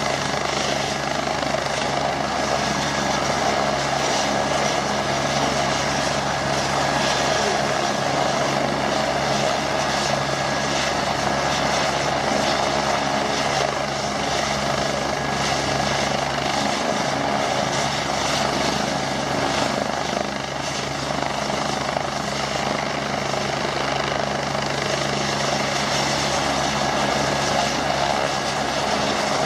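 AgustaWestland AW109 Grand helicopter running on the ground with its main rotor turning. Its twin turbines give a steady whine over the rotor's hum, unchanging throughout.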